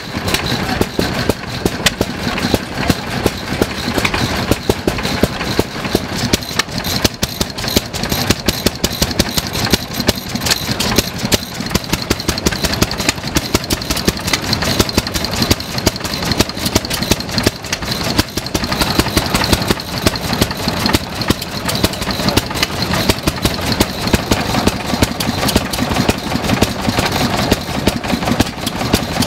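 Vintage stationary engines with heavy flywheels running, a steady chatter of sharp exhaust beats.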